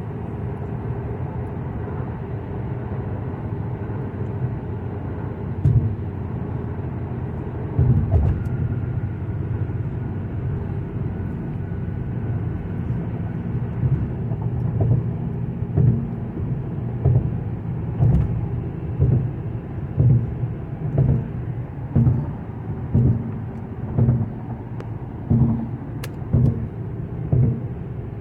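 Muffled, steady low rumble of a hall before a show, picked up by a phone microphone; from about halfway a low thump sets in about once a second, like a muffled bass-drum beat over the sound system.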